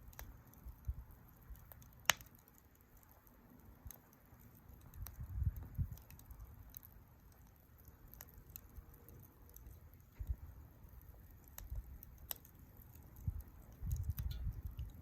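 Campfire burning quietly, with scattered sharp crackles and pops from the wood. The loudest pop comes about two seconds in. Low rumbling swells come and go.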